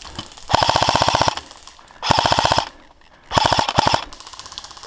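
Airsoft gun firing three bursts of rapid full-auto fire, each under a second long, with short pauses between. A fainter rapid ticking of more fire follows near the end.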